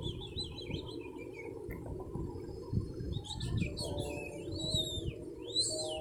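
African grey parrot chirping and whistling: a quick run of warbling chirps in the first second or so, then a few whistles from about three seconds in, ending in a loud rising whistle.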